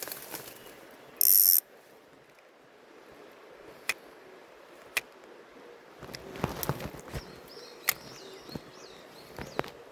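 Fishing reel being worked: a short loud high whir a little over a second in, then scattered sharp clicks of the reel mechanism, with some handling rustle.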